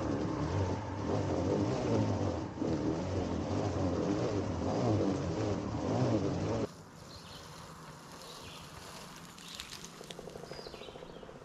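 Hand-crank broadcast seed spreader being cranked while seeding: a steady whirring, rattling gear noise with a wavering pitch. It cuts off about two-thirds of the way through, leaving faint outdoor background with a few bird chirps.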